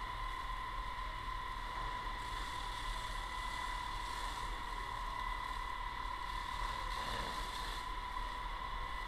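Fire hose spraying a steady jet of water, under a constant high-pitched whine and a low hum.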